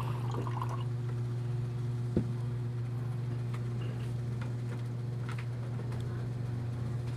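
Steady low electrical hum with faint scattered ticks, and one soft knock about two seconds in.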